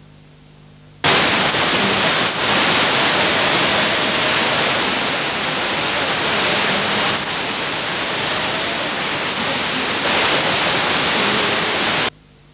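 Loud, even static hiss from a failing microwave studio-to-transmitter link, carried on a TV station's broadcast audio. It cuts in suddenly about a second in and cuts off just as suddenly near the end, leaving a faint low hum.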